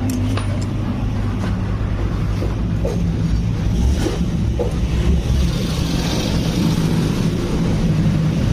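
Steady low engine rumble, with a few light clicks and taps over it.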